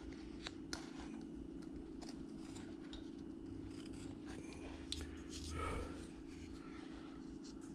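Carving knife cutting and shaving wood: faint, scattered light clicks and scrapes as the blade slices small chips, over a steady low hum.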